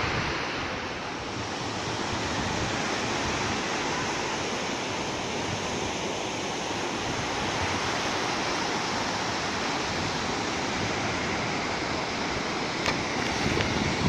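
Small sea waves breaking and washing up a sandy beach in a steady hiss, with wind rumbling on the microphone. A few sharp clicks near the end.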